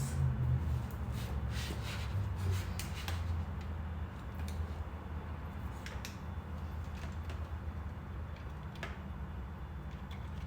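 Scattered light clicks and knocks of small parts being handled and fitted back in place, over a steady low hum.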